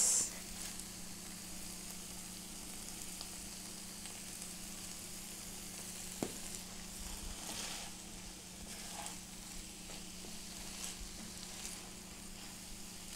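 Corned beef with potatoes and tomato sizzling gently in a pot as it simmers, a steady faint hiss. There is a single light utensil tick about six seconds in.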